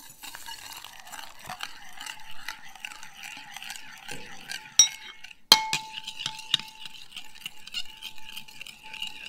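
Metal spoon stirring coffee in a ceramic bowl, scraping and clinking against the sides. Two sharp clinks about five seconds in, the second leaving the bowl ringing.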